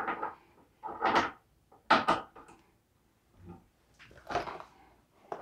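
Brass .223 rifle cases being handled at a single-stage reloading press: a few short clicks and knocks about a second apart as cases rattle in a plastic tub and are set against the press.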